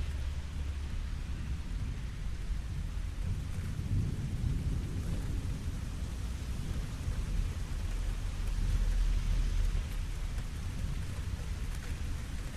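Steady rain falling, with low rolling thunder that swells about four seconds in and again, louder, around nine seconds.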